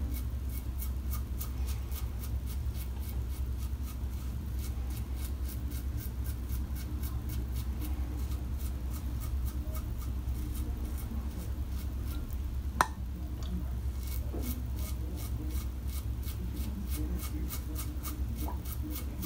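Karve CB safety razor scraping through stubble around the lips in short, quick strokes, about three or four a second, in two runs with a lull between. A single sharp click comes a little past the middle, over a steady low room hum.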